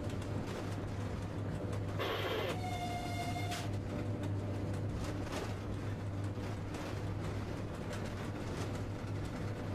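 Cab noise of an AC electric locomotive rolling slowly over station points: a steady low hum under an even rumble. About two seconds in comes a short hiss, followed by a brief whistle-like tone lasting about a second.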